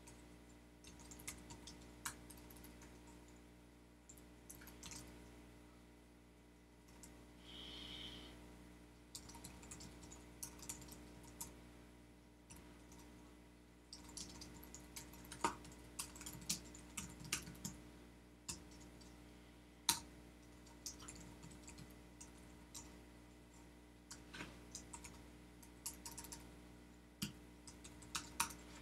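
Computer keyboard being typed on in irregular bursts of keystrokes, with pauses between runs. A steady low electrical hum runs underneath.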